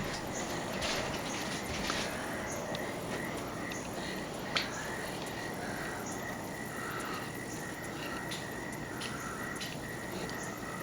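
Outdoor night-time-style ambience dominated by a steady, unbroken high insect trill, with a few softer calls in the background and a single sharp click about four and a half seconds in.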